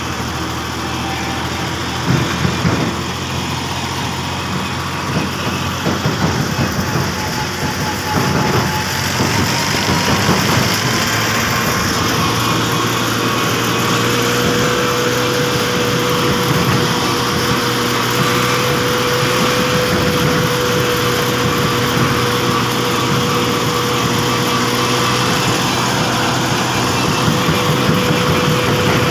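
A Massey Ferguson 260 tractor's diesel engine running under way as the tractor drives along. The engine picks up a little in pitch and loudness around ten seconds in, then holds at a steady speed.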